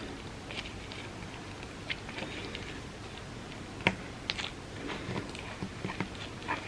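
Close-miked chewing and mouth sounds of someone eating a soft dessert lasagna of layered tortillas, chocolate and peanut butter: many small scattered smacks and clicks, with one sharper click about four seconds in.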